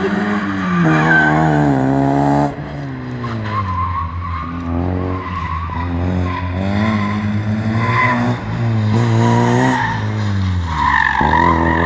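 Rally car engine revving hard, its pitch climbing and falling again and again, with sudden drops about two and a half seconds in and near the end. Tyres squeal at intervals as the car slides through the corners on tarmac.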